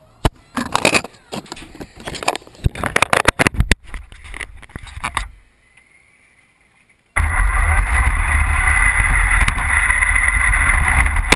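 Knocks and rattles of the RC car and its camera being handled and set down, then a short lull. About seven seconds in, the RC car's motor starts abruptly and runs steadily as the car drives off, a high whine over a low rumble.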